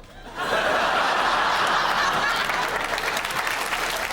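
Studio audience bursting into applause about half a second in, then clapping steadily.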